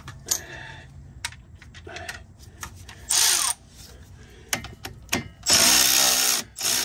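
Power tool run in two short bursts, about three seconds in and again near the end, spinning out a large strut bolt that has already been broken loose with a breaker bar. Sharp metal clicks of the tool and socket fall between the bursts.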